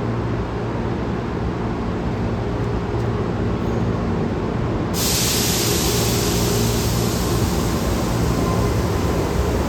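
Boeing 747 jet airliner noise: a steady low rumble with a few steady hums, joined about halfway through by a loud high hiss that starts suddenly and holds.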